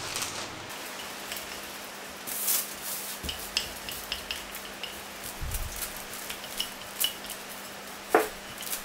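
Rolling pin rolled back and forth over cookie dough between two sheets of baking paper: the paper rustles and crinkles with each stroke, with a few soft knocks.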